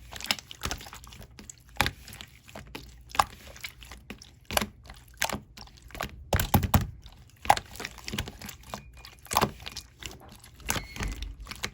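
Clear slime being squeezed and pressed by hand, giving irregular sharp clicks and pops, a few of them louder with a dull thud underneath.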